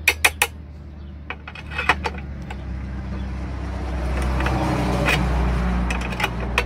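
Steel rod and bending pipe clinking against a homemade steel stirrup bender: a few sharp metallic clicks right at the start and another about two seconds in, as the alambrón is levered round into a stirrup. From about three seconds a low rumble swells up, peaks, and eases off near the end.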